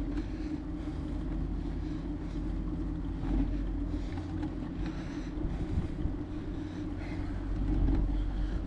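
Steady wind rush and road rumble on a GoPro action camera's microphone during a bicycle ride, swelling a little about three seconds in and again near the end.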